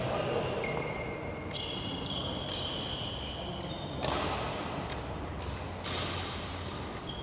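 Badminton play: shoes squeaking on the court floor in short high tones, and sharp racket hits on the shuttlecock about four seconds in and twice more around five and a half to six seconds.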